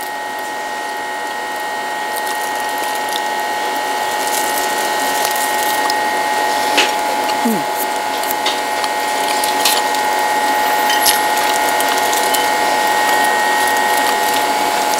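A steady mechanical-sounding buzzing whir holding a constant high tone, slowly growing louder, with a few faint clicks over it.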